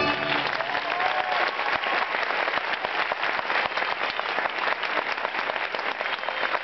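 Audience applauding, with the last of the recital music cutting off at the very start.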